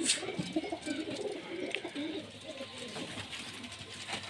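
Domestic pigeons cooing, repeated low wavering coos.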